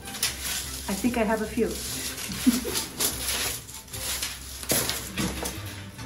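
Dry reed stems rustling and clicking against each other as they are pulled out of a tall bundle, with a brief murmur from a person's voice about a second in.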